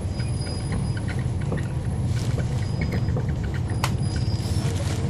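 Inside a 2011 NABI 40-SFW transit bus: the steady low drone of its Cummins ISL9 diesel, with scattered rattles and clicks from the cabin and a sharper click a little before the end.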